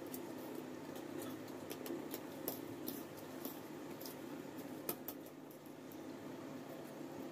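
Two people eating noodles: chewing and eating noises, with scattered sharp clicks of metal forks against the noodle trays, over a steady low hum.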